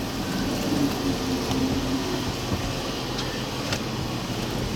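Strong wind rushing against a car, heard from inside the cabin as a steady noise over a low hum.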